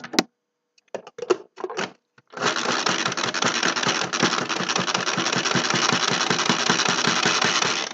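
A few short knocks, then a Pampered Chef manual food processor's pull cord being yanked over and over, its blades whirring with a fast, even rhythm as they chop red onion, cilantro and jalapeño in the plastic bowl.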